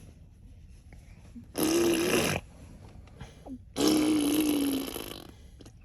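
A small child imitating a car engine with her mouth: two buzzing vocal bursts, the first short, the second longer and trailing off.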